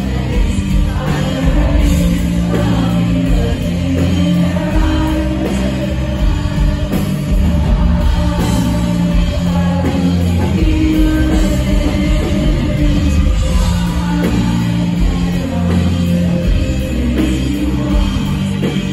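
Live rock band playing loudly, with drums and sustained bass and keyboard notes, and a woman singing over it into a microphone, heard from within the concert audience.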